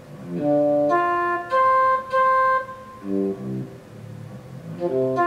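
Synthesized instrument notes from a Roland MIDI sound module, played by hand from an Altura MIDI theremin. The notes jump from pitch to pitch, with a few held tones and some quick runs.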